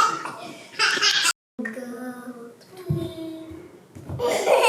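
Young children's voices, laughing and half-singing, with a brief total dropout about a second and a half in.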